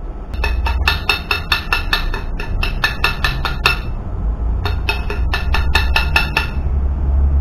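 Rapid light hammer strikes on steel, each one ringing, about four to five a second in two runs: one of about three seconds, then after a short pause one of about two seconds. A steady low hum runs underneath.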